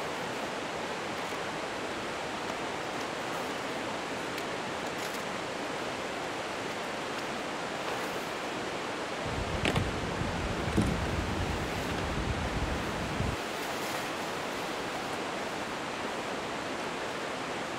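Creek rushing steadily, a constant even wash of water noise. Around the middle there are a few seconds of low rumble with a couple of small knocks.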